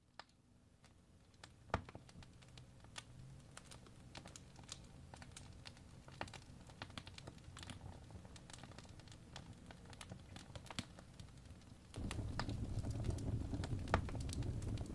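Wood fire crackling in a fireplace, with irregular sharp pops and snaps. About twelve seconds in, a louder low rumble comes up under the crackling.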